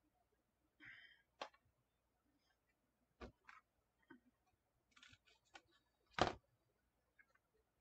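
Faint handling of wired craft ribbon against a measuring board: a short soft rustle about a second in, then scattered light clicks and taps, the sharpest about six seconds in.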